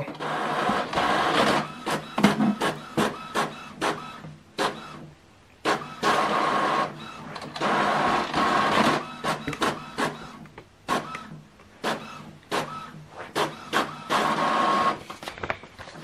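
Epson WorkForce Pro WF-M4119 monochrome inkjet printer printing a page: several stretches of mechanical whirring, each lasting a second or two, broken up by rapid clicks and clacks from the paper feed and print-head carriage.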